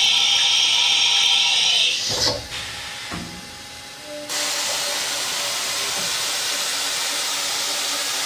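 CNC mill changing tools, with a loud high-pitched blast of compressed air for about two seconds as the tool is swapped, then a couple of clunks. About halfway through, a steady hiss of the mill's air blast starts and runs on, with the spindle turning underneath.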